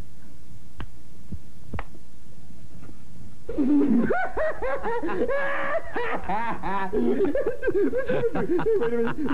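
A low steady hum with a couple of faint clicks, then from about three and a half seconds in, laughter that goes on to the end, several voices overlapping.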